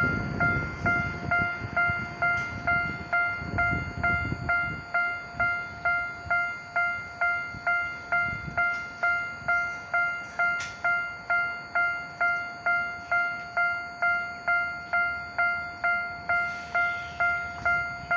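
Railway level-crossing warning bell ringing steadily, about two dings a second, each a clear bell-like tone. A low rumble comes and goes in the first few seconds under the bell.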